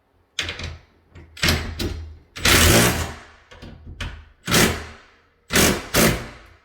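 Power screwdriver run in about six short trigger bursts, the longest and loudest about two and a half seconds in, driving a screw of the barn-door hardware home until it is nearly tight.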